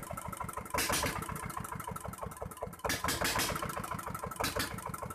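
Dongfeng R180 single-cylinder diesel engine running after a hand-crank start, with a rapid, even run of firing knocks and louder surges about one second and three seconds in. No squeal is heard, a sign that the internal fault has been cured.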